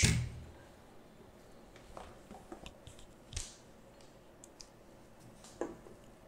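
Laptop motherboard being handled on a workbench: a soft thud at the start as it is set down, then a few faint, scattered clicks and taps.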